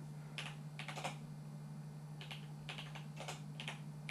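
Typing on the keyboard of a Radio Shack TRS-80 Model 100: about a dozen key clicks in an irregular run, over a steady low hum.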